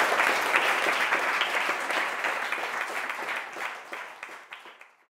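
Audience applauding, fading away over a few seconds until it is gone near the end.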